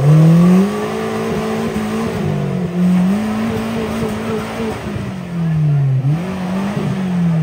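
Maruti Suzuki Gypsy engine revving hard while the 4x4 is stuck and straining to climb a muddy slope. The revs climb, hold, sag and climb again several times, falling away near the end.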